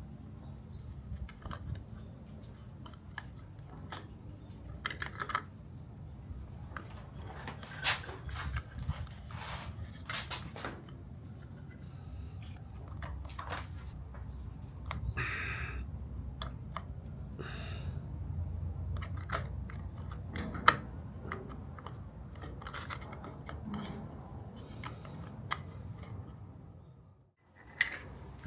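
Irregular clicks and knocks of hands handling and shifting parts of a drill press, over a low steady background.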